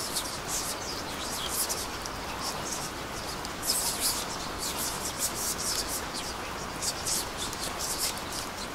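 Rain: a steady hiss with many irregular, high-pitched ticks of drops.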